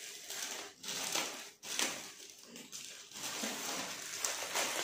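Plastic parcel packaging crinkling and rustling as it is handled and cut open with a knife, with a few small sharp ticks near the end.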